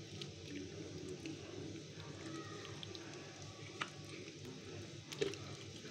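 Faint wet squishing of hands rubbing a blended onion-and-tomato marinade into the skin of a raw duck, with a couple of soft clicks in the second half.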